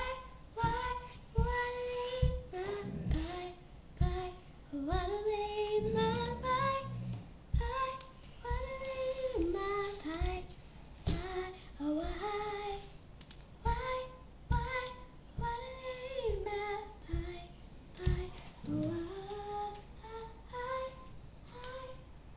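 A young girl singing a song unaccompanied in a high voice. The melody rises and falls in short phrases, with brief breaks for breath.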